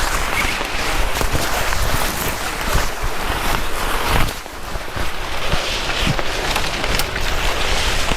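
Heavy rain falling, a dense hiss with many individual drops striking close by; the level dips briefly about four seconds in.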